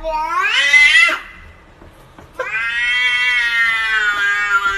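Domestic cat yowling in two long drawn-out calls. The first rises in pitch and breaks off about a second in. The second starts about halfway through and slowly falls in pitch.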